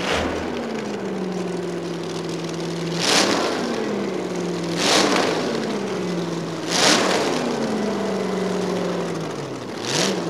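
Vintage front-engine dragster's engine blipped hard four times, about every two seconds, each rev dropping slowly back toward idle.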